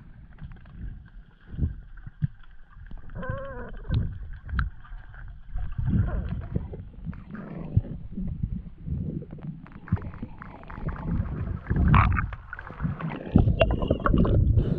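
Muffled underwater noise from a diver's camera: uneven low rumbling and gurgling water as the diver swims, with a brief wavering tone about three seconds in and louder knocks and rustling near the end.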